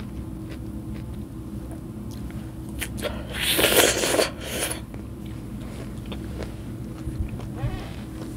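A bite into a chunk of fresh pineapple close to the microphone, about three seconds in and loudest near four seconds, followed by a smaller bite sound and quiet mouth clicks over a steady low hum.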